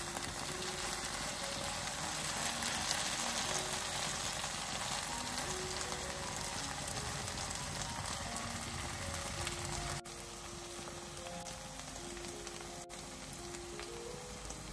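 Diced potatoes, tomatoes and onions sizzling steadily as they fry in a pan, with soft music notes underneath; the sizzle drops a little about ten seconds in.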